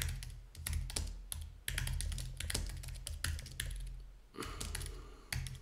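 Typing on a computer keyboard: a quick, irregular run of key clicks, with a short pause about four seconds in.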